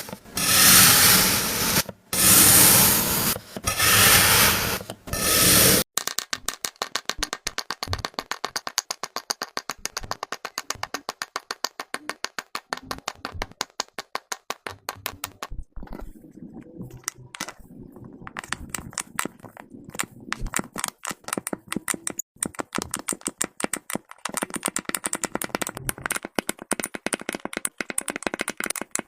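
Kinetic sand being worked: about four loud scraping swells in the first six seconds, then a long run of rapid, fine crackling clicks.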